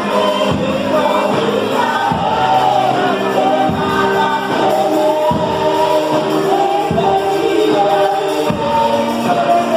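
Gospel worship band playing a song, with several voices singing the melody over bass and low drum beats.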